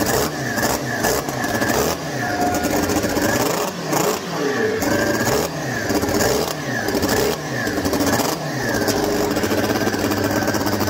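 Turbocharged Yamaha Apex snowmobile four-cylinder engine running on an open test frame. It is revved up and down by hand about once a second, each blip rising and falling in pitch. This is its first successful start-up after a firing-order fix.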